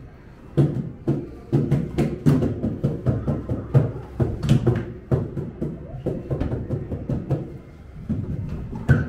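Irregular knocks and taps of hands and feet on hard light-up floor discs, coming several times a second.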